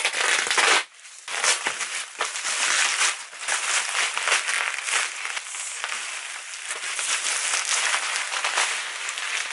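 Bubble wrap and plastic packaging crinkling and crackling as it is cut open and pulled apart by hand. There is a short break a little under a second in, then the crinkling runs almost without pause.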